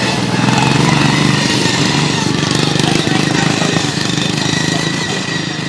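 Racing riding lawn mowers' small engines running on the track, growing louder about half a second in and then slowly fading.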